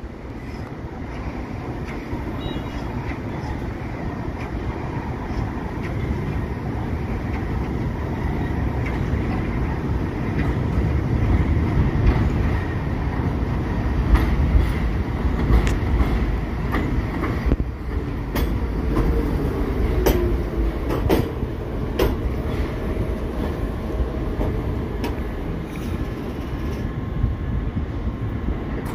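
A New York City subway train of R46 cars pulls into an elevated station and brakes to a stop. It grows steadily louder as it approaches, with its steel wheels clicking over the rail joints and brief wheel and brake squeals as it slows.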